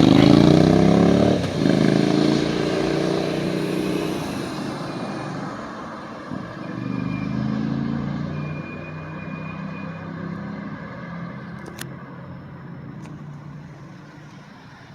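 Road traffic at a city intersection: a motor vehicle's engine passes close and loud at first, its pitch shifting as it moves off, then a second, quieter vehicle goes by about seven seconds in, and the traffic noise fades away.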